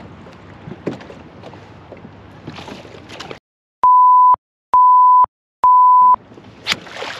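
Three short censor bleeps, a steady single-pitched tone each about half a second long, laid over audio that is cut to silence between them. Before and after, water lapping and wind noise from the kayak, with a sharp knock near the end.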